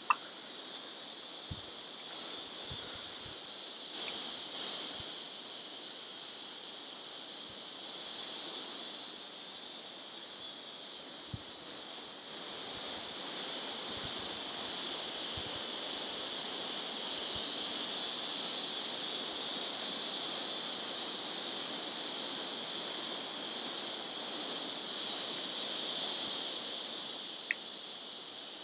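Moustached Puffbird singing: a long series of high, thin, upslurred whistles, about one and a half a second. The series starts about halfway through, grows louder, then holds steady before it stops. Underneath is a steady high hiss.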